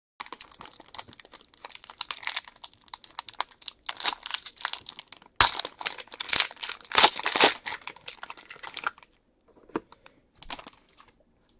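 Foil trading-card pack being handled and torn open, a dense crinkling and crackling of the wrapper with a sharp tear about five and a half seconds in. It dies down to a few scattered crinkles after about nine seconds.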